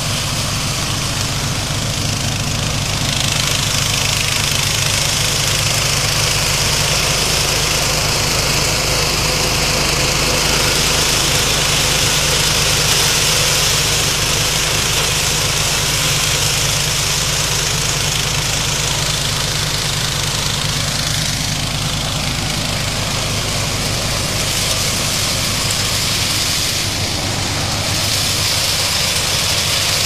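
Walk-behind mini combine harvester running steadily as it cuts wheat, its small engine giving a constant low note under a broad mechanical hiss.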